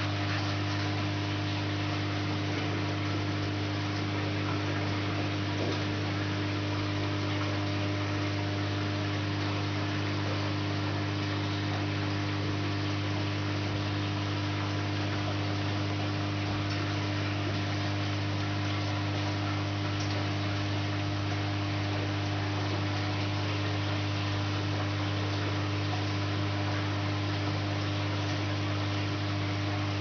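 Aquarium equipment humming steadily, with an even hiss of air bubbles rising from the aeration in the tank.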